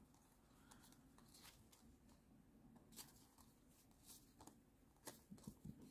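Near silence, with a few faint ticks and rustles from a fanned handful of Japanese Pokémon trading cards being flipped through, a little more of them near the end.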